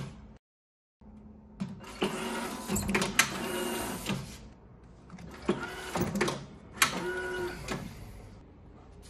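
Ultrasonic banding machine running its strapping cycle: a motor whirring as the band is fed round the arch and pulled tight, with sharp clicks. It runs twice, each cycle lasting two to three seconds, after a brief dropout about half a second in.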